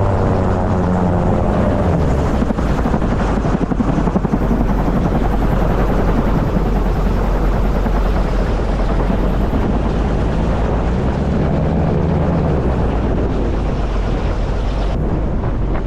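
Homemade gyrocopter's engine and propeller running steadily, with the rotor turning overhead and wind rushing past as it rolls along the road. A low hum in the mix rises and falls a few times.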